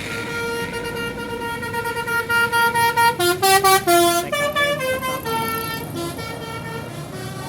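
Bus telolet horn, a Basuri-type multi-trumpet air horn, playing a melody: held notes that pulse faster and louder, then quick jumps between notes about three seconds in and a run of notes stepping down in pitch, before settling back to held notes.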